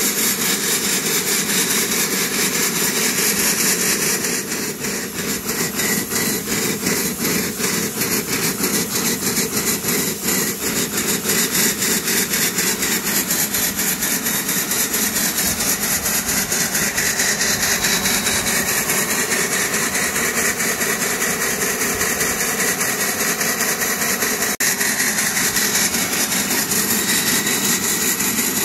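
5-inch gauge Pansy live-steam model locomotive running on a rolling road: a loud, steady hiss of steam with a fast, even beat of exhaust chuffs that is plainest in the first half.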